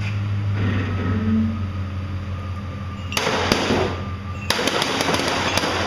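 A towing vehicle's engine hums steadily. About three seconds in comes a rush of noise, and then a quick run of sharp metallic clanks as steel railway spikes and bolts snap up onto the underside of an Aardvark tow-behind magnetic sweeper.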